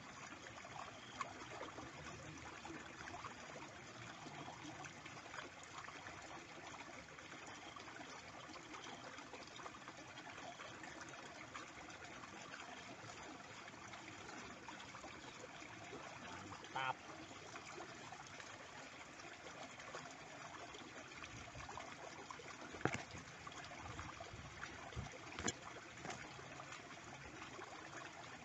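A small, shallow stream trickling and flowing steadily, with a few short sharp clicks in the second half.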